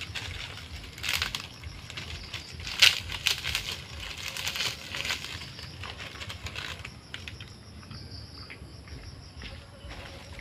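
Dry sticks, twigs and dead fronds rustling and snapping as they are carried and dropped onto a pile for kindling, in irregular bursts loudest about three seconds in and thinning out in the last few seconds. Insects keep up a faint steady chirring underneath.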